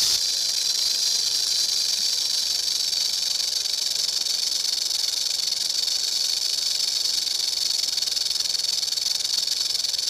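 Snake hissing sound effect: one long, steady, high-pitched hiss with no breaks.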